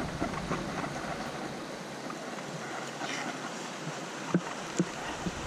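Steady rushing noise like flowing river water, with two short knocks near the end.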